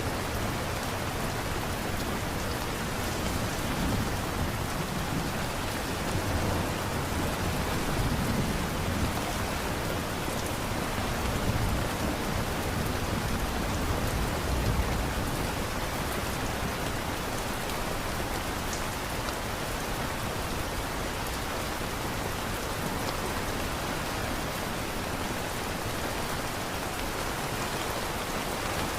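Steady rain falling, a dense even hiss, with low rumbles swelling and fading in the first half.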